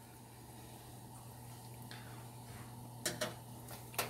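Metal kitchen tongs clicking twice against the oven tray or serving platter, about three and four seconds in, over a steady low hum.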